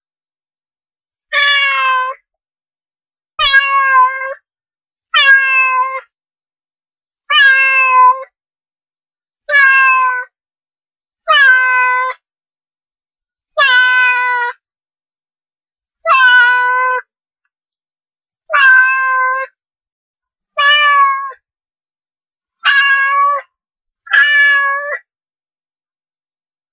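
A domestic cat meowing again and again: about a dozen near-identical meows of about a second each, coming every two seconds or so, with dead silence between them.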